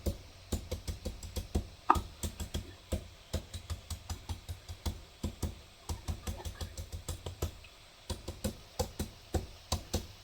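Knife blade repeatedly chopping into a green papaya against a cutting board, shredding it for som tam: quick, even knocks about three or four a second, with a short pause about three quarters of the way through.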